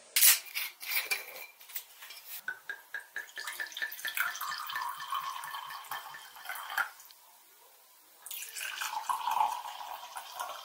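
White wine glugging from a bottle into stemmed wine glasses in two pours, the second starting about eight seconds in. A few sharp clicks of glass come just before the first pour.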